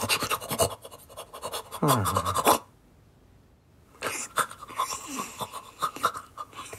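Cartoon cat vocal sound effects: quick, scratchy panting and scampering noises, then a meow-like cry that falls in pitch about two seconds in. After a short pause come more breathy, scratchy cat noises with brief squeaky cries.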